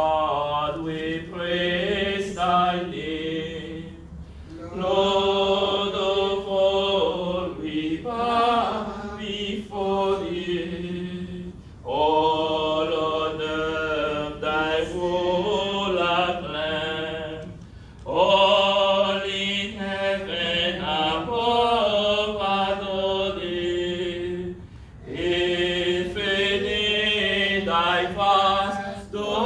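A Spanish hymn sung in phrases of several seconds, each followed by a short break, over a steady low held note.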